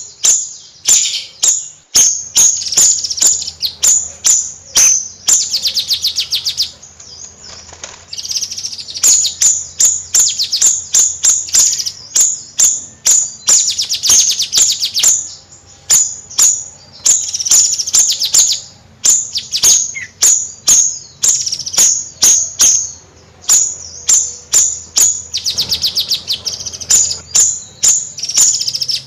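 Bayeman songbird singing vigorously: a fast string of sharp, high chirps, several a second, broken every few seconds by a rattling high trill.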